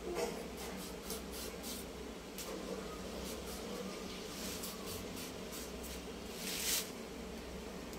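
Green papaya skin being shaved off against the curved blade of a boti: a series of short scraping strokes, the longest and loudest near the end.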